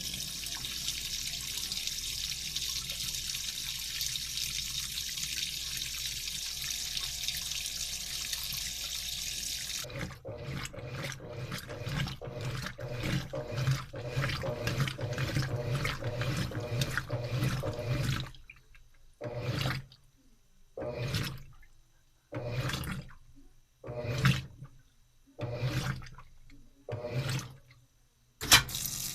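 Washing machine on a full wash cycle. For about ten seconds water runs steadily into it. Then the motor hums as the drum sloshes the wash continuously, and after about eight seconds it switches to short strokes roughly every second and a half with pauses between them.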